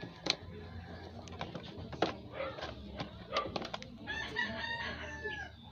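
A rooster crows once, about four seconds in, over a low steady hum. Before it comes a series of sharp clicks as a metal test probe is tapped against the connector of an audio cable.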